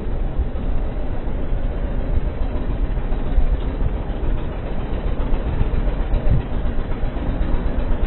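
Steady low rumble of a motor vehicle on the move, its engine and road noise running on without a break.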